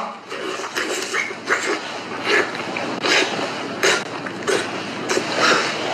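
Wet mouth sounds of a person eating a whole octopus: irregular smacks, sucks and squelches, about one or two a second.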